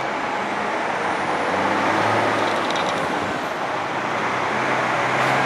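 Steady vehicle running noise outdoors, a continuous rushing hum with a faint low engine drone underneath, growing slightly louder toward the end.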